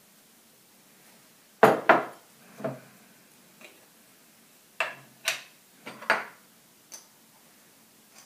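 Metal measuring spoon clinking and tapping against a glass mixing bowl and small glass jars while dry ingredients are measured out. There are several sharp clinks in two clusters, about two seconds in and again about five seconds in.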